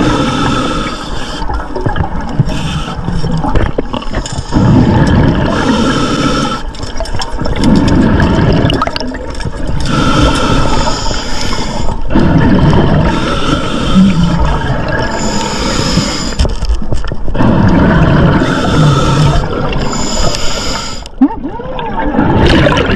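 Scuba diver breathing through a regulator underwater: bursts of bubbling exhalation every two to three seconds, some with a thin whistle from the regulator, between quieter inhalations.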